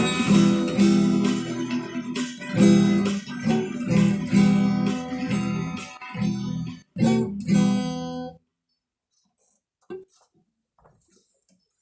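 Acoustic guitar strummed in chords, with short pauses between phrases, then a last strum that stops about eight seconds in. After it, near silence with one faint knock.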